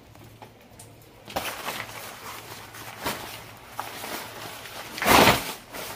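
Raincoat fabric rustling and crackling as it is unfolded and shaken out. The rustling starts about a second in, and there is one loud flap of the coat about five seconds in.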